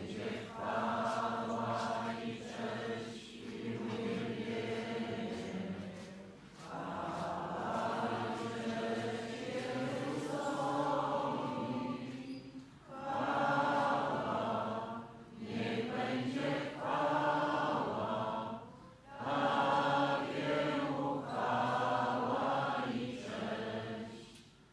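Voices singing a hymn together during Mass, in long phrases with short breaks between them.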